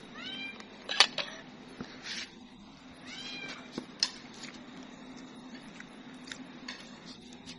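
A cat meowing twice, each call rising and then falling in pitch. Between the calls come sharp metallic clinks, like a spoon against a steel serving tray; the loudest is about a second in.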